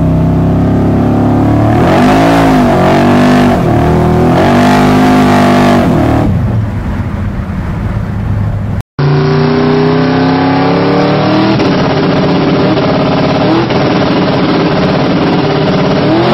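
A high-performance car engine, heard from inside the car, revved in several quick blips that then die back. After an abrupt cut, a car accelerates hard, its engine note climbing steadily and rising sharply near the end.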